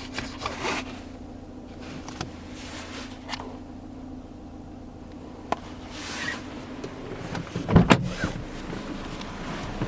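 Glove box and user manual being handled inside a car: small clicks and rustling, with a louder knock about 8 seconds in, over a steady low hum.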